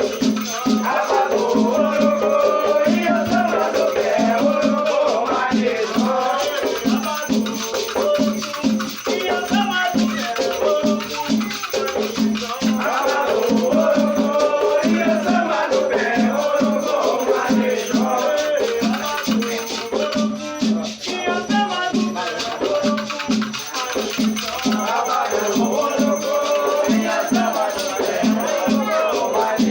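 Afro-Brazilian batuque ritual music: gourd rattles shaken in a fast, steady rhythm over drum beats, with voices singing chants to the orixás.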